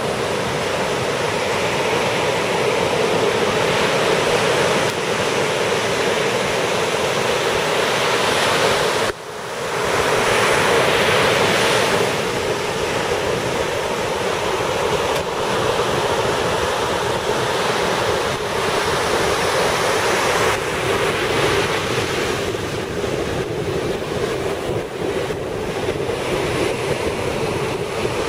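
Indian Ocean surf breaking and washing up a sandy beach, with wind buffeting the microphone. The sound drops out briefly about nine seconds in.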